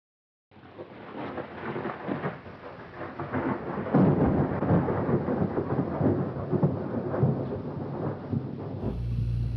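Thunderstorm sound: rolling thunder over rain, starting abruptly out of silence and building in loudness. A steady low hum joins near the end.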